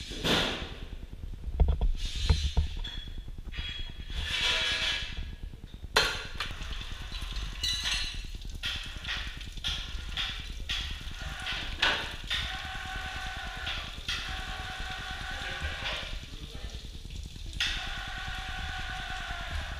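Knocks and clatter of a stainless-steel cheese mould, its lid and a screw press being handled and set in place, sharpest about two seconds in, six seconds in and twelve seconds in. A steady hum comes in during the second half and breaks off briefly near the end.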